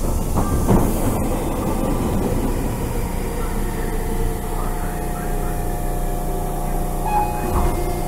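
Tobu Tojo Line electric train standing at a station platform with its doors open: a steady low hum and rumble from its idling on-board equipment, with a few steady tones coming in during the last few seconds.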